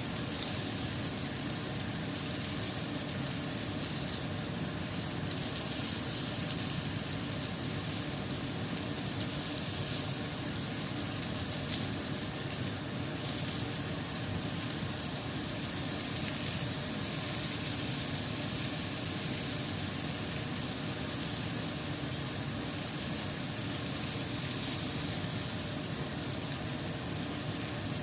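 Salmon frying in a pan, a steady sizzle.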